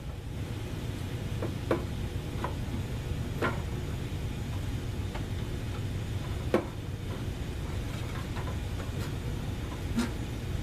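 Scattered light clicks and taps, a second or more apart, from parts being handled inside a tankless water heater being taken apart, over a steady low hum.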